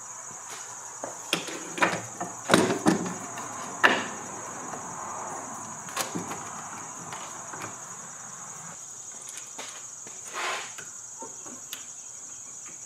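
Scattered knocks and clicks of bar clamps being handled, slid and tightened on a wooden workbench, the loudest in the first four seconds. A steady high chirring of crickets runs underneath.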